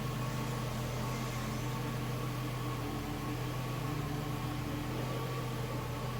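Ford Mustang engine idling steadily, an even, unchanging hum.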